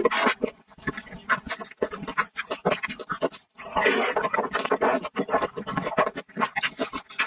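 Close-miked mukbang eating sounds: wet chewing and lip smacking in quick, irregular clicks, with a long slurp of sour-and-spicy glass noodles about four seconds in.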